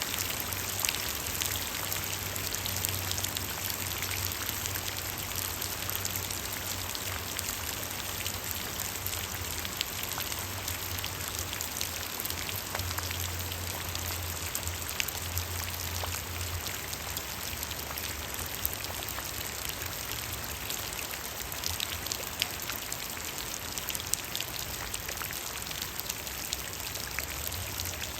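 Steady rain falling, an even hiss with the sharp ticks of single drops striking a surface, and a low hum underneath.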